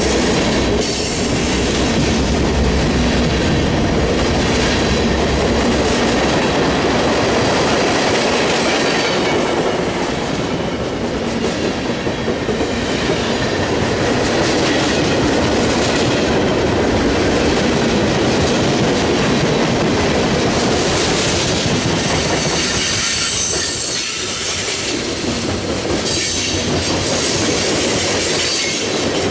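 Freight cars rolling past: covered hoppers, tank cars and gondolas rumble by steadily, steel wheels clacking over the rail joints, with a thin high wheel squeal at times.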